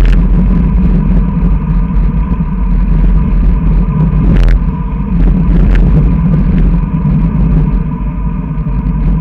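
Heavy wind rumble on a handlebar-mounted camera's microphone as a road bike rides along, with a few sharp knocks, about four and a half and nearly six seconds in.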